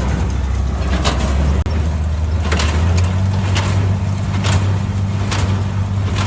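Farm tractor engine running steadily while pulling a small square baler, with a sharp knock about once a second as the baler's plunger packs hay.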